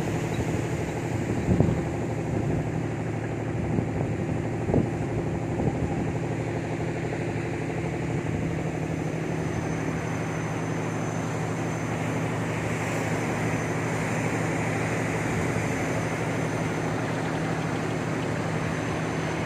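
A ship's engine runs with a steady low hum under wind noise on the microphone, heard from on board. Two short knocks come in the first five seconds.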